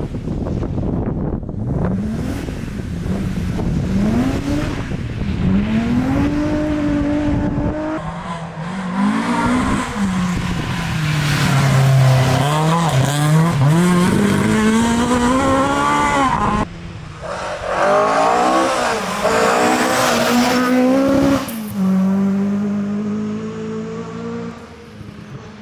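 Historic rally cars at full throttle on a wet stage, among them a BMW E30 3 Series and a Ford Escort Mk1: engines revving hard and falling back through gear changes as each car passes, with abrupt changes from one car to the next. Quieter, more distant engine near the end.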